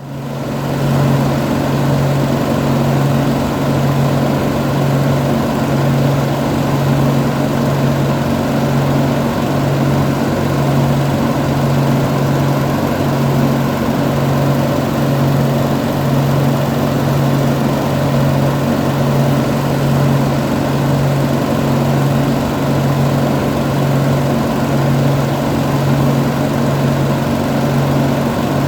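Vintage air conditioner running: a steady mechanical hum whose low drone throbs evenly a little more than once a second, over a constant rush of noise.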